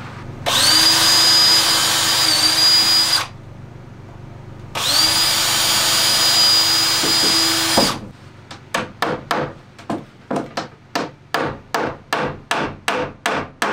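Cordless drill running in two bursts of about three seconds each with a steady whine, working into the wooden entrance of a beehive bottom board. Then a hammer strikes the wood about twenty times in a steady rhythm, roughly three blows a second.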